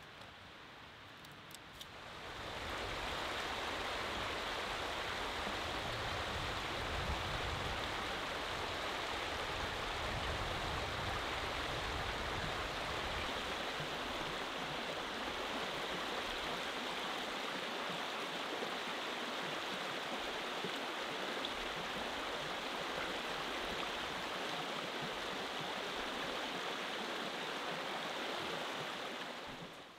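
Shallow rocky creek running over stones, a steady rush of water that sets in about two seconds in, with a low rumble under it for the first several seconds.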